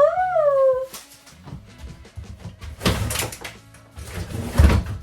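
Background music, with a held note bending up and down near the start and two heavy thuds, one about three seconds in and a louder one near the end.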